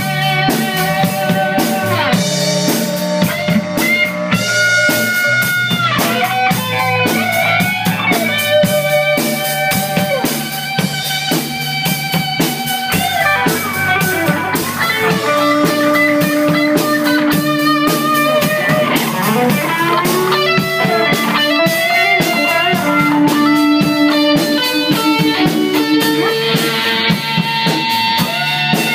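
Two electric guitars, a Les Paul-style and a Strat-style, jamming through amplifiers, with lead lines full of bent notes over a steady low part and a drum beat.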